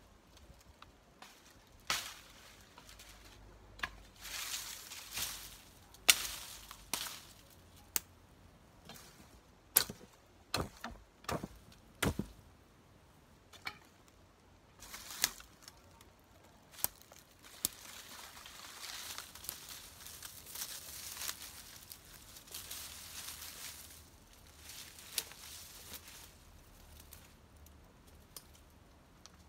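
Dry brush and twigs rustling and snapping: scattered sharp cracks, loudest about six and ten seconds in, between longer stretches of rustling.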